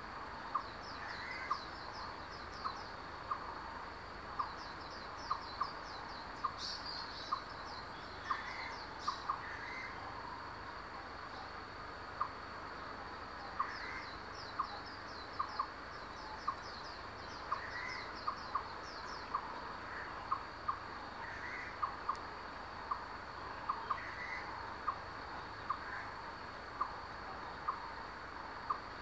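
Forest birds calling: a short sharp note repeated at irregular intervals about once a second, softer higher notes, and several bursts of fast high trills, over a steady high insect drone.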